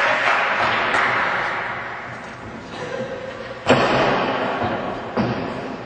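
Crowd noise dying away, then two sharp impacts in a wrestling ring about a second and a half apart, the first much the louder, each with a short echo in the hall.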